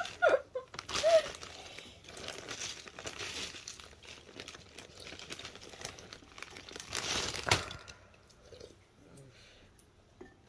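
Crinkling and rustling of plastic packaging being handled, in uneven spells, loudest about seven seconds in, then dying away.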